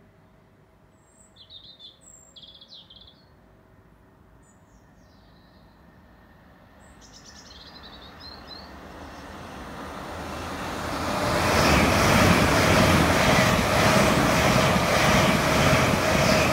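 A few bird chirps, then a passenger train approaching and passing close by at speed, its noise building over several seconds to a loud, steady rush with a faint steady tone.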